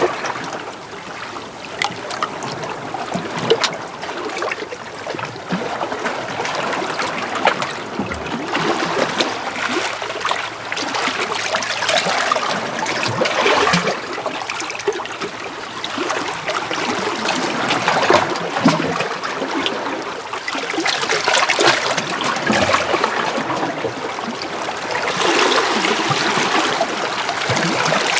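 Small sea waves washing in and out over shoreline rocks, splashing and trickling. The wash swells and ebbs every few seconds, with many small splashes.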